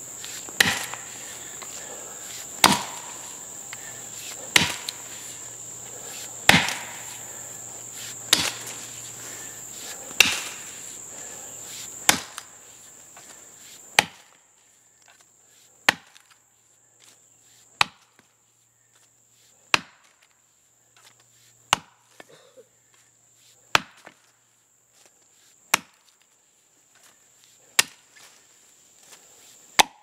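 Ax chopping into the front notch of a standing tree, clearing the felling notch, with single sharp strikes at a steady pace of about one every two seconds.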